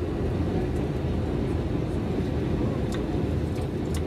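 Steady, deep cabin noise of a passenger plane in flight.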